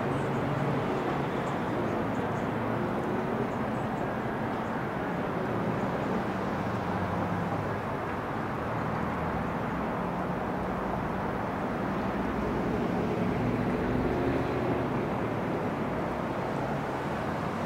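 Steady engine rumble from idling vehicles, a low hum drifting slightly in pitch over a constant hiss.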